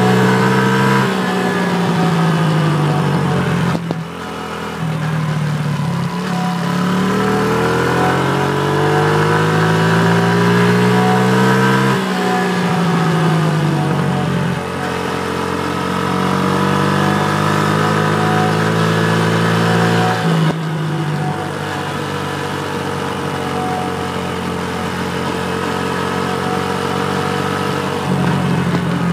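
Honda CRF50 pit bike's small single-cylinder four-stroke engine at full throttle while riding, its pitch climbing steadily and then dropping sharply about half a dozen times.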